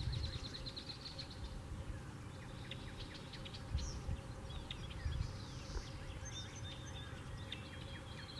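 Wind noise on the microphone, with several small birds chirping in the background, and a fast high trill near the start.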